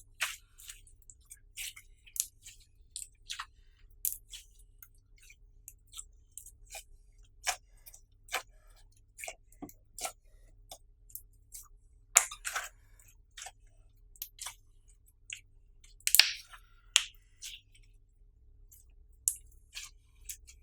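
Clear slime being kneaded and pressed by hand, giving off irregular sticky clicks and small pops, with a few louder pops about twelve and sixteen seconds in.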